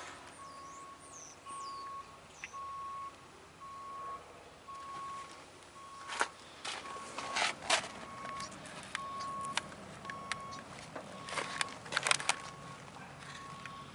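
An electronic beeper repeats one steady tone over and over, about one and a half beeps a second. Sharp clicks and knocks come in clusters around six to eight seconds in and again near twelve seconds, and a bird chirps a few times near the start.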